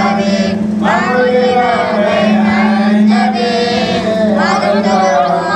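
Men chanting Arabic Mawlid verses together into microphones, one unbroken melodic recitation with only brief pauses for breath.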